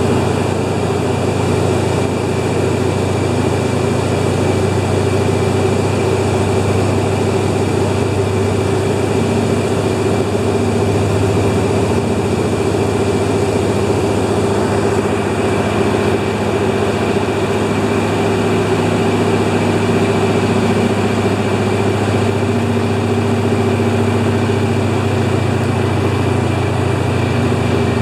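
Engine and propeller of a de Havilland Beaver aircraft running steadily at constant power, with no rise or fall in pitch.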